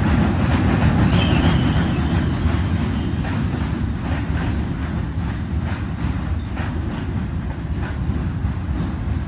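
New York City subway train running across the Manhattan Bridge's steel span close by: a steady heavy rumble with irregular wheel clicks over the rail joints, easing slightly toward the end.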